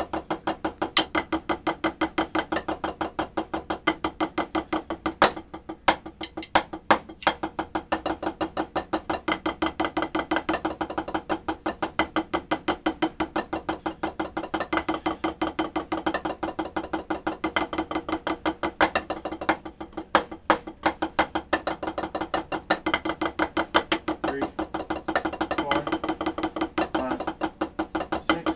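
Snare drum struck with drumsticks in a steady, even stream of strokes, several a second, with a few louder accented strokes.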